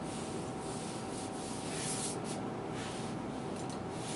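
Steady rubbing and hissing as an eraser is wiped across a whiteboard to clear marker notes, with a faint steady hum underneath.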